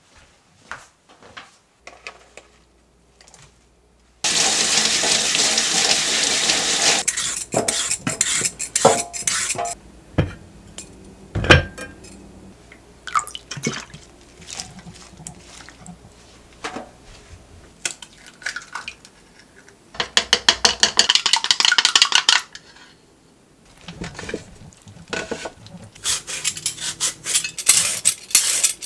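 Kitchen food-prep sounds: a tap runs for a few seconds, twice, with glass bowls and utensils clinking and knocking in between. Near the end come fast scraping strokes of a julienne peeler shredding a carrot into strips.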